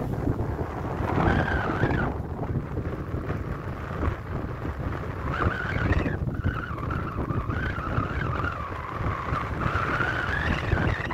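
Wind buffeting the phone's microphone as a steady gusty rumble, with a wavering high whine that comes in briefly about a second in and again for the second half.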